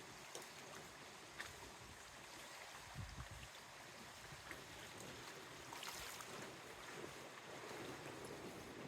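Faint wind outdoors, with a low gust buffeting the microphone about three seconds in and a few soft ticks scattered through it.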